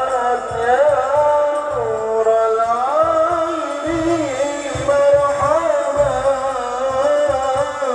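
Arabic devotional sholawat sung with long, winding held notes, over a low drumbeat.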